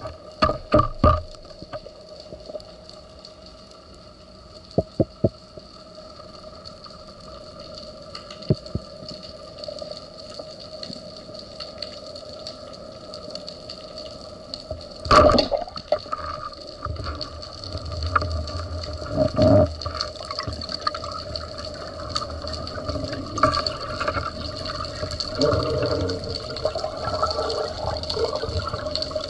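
Underwater sound on a spearfishing dive: a steady water hiss with a faint hum, scattered clicks early on, a sharp knock about halfway through, and busier churning water with low rumbling in the last third as the diver rises toward the surface.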